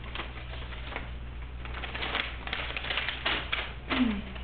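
Typewriter keys clacking in an irregular run of sharp strikes, then a louder short sound near the end as the typed sheet is pulled out.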